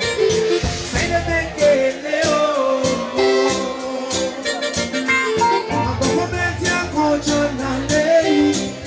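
Live reggae band playing with a singer on the microphone: drums, bass, electric guitar and keyboard.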